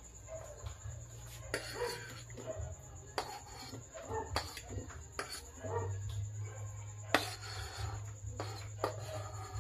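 Sliced cucumber and tomato being scraped off a wooden chopping board into a ceramic bowl: a run of sharp clicks and knocks of the board and pieces against the bowl, over background voices and a steady low hum.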